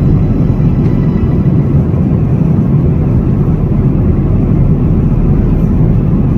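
Steady airliner cabin noise in flight: the low, even rush of the engines and airflow heard from inside the cabin.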